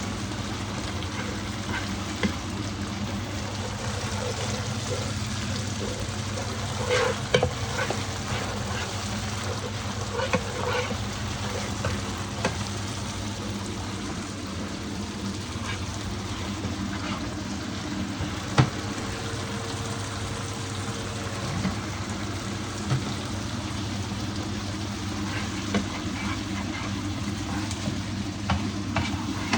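Fish pan-frying in hot oil, a steady sizzle under a low steady hum, with a handful of short sharp knocks as the pieces are turned in the pan.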